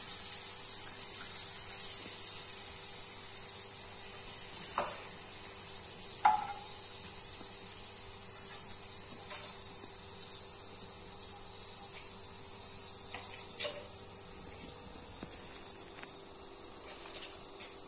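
Papad pieces frying in hot oil in a wok, a steady high sizzle, with about three short knocks of a metal utensil against the pan as the pieces are turned.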